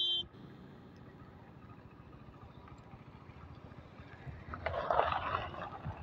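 Low outdoor background, then about five seconds in a Hyundai hatchback rolls up close on a loose dirt and gravel track, its tyres and engine briefly louder as it passes.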